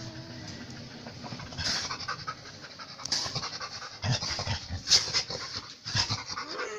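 Dog panting and sniffing close to a kitten: short breathy bursts about once a second, with a short falling cry just before the end.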